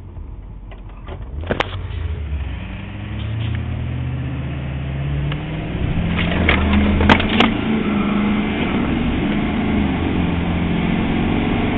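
Truck engine accelerating, heard from inside the cab: its pitch climbs steadily for a few seconds, then holds high over road noise. Two sharp clicks come about seven seconds in.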